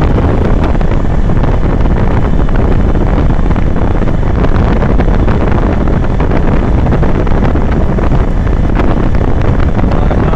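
Steady, loud rush of wind buffeting the microphone from a moving vehicle, with the vehicle's road noise underneath.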